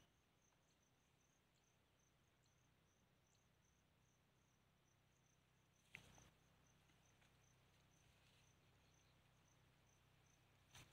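Near silence, with faint cricket chirping in a steady, even pulse. A brief knock about six seconds in.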